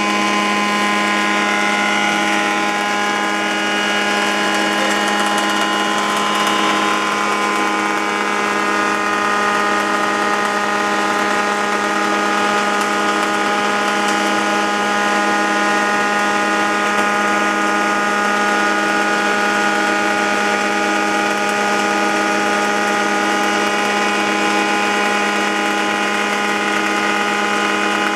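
Spindle moulder with a power-feed wheel running steadily while machining a curved wooden arch moulding: a constant motor hum with a high hiss of cutting over it.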